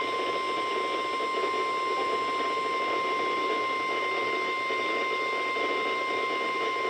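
NOAA Weather Radio warning alarm tone: one steady, unbroken high-pitched tone over the hiss of radio static, the alert that signals a warning message is about to be broadcast.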